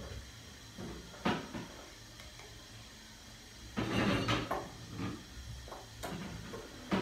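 Scattered household knocks and clicks, with a louder clattering stretch about four seconds in.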